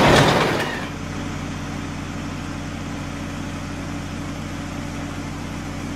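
A loud rushing swoosh fades out over the first second. Then a steady, even engine drone runs on, the idling sound effect of a cartoon heavy wheeled vehicle.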